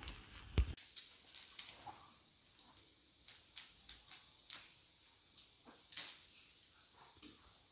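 Charcoal fire under a roasting duck crackling, with scattered sharp pops and ticks over a faint steady hiss.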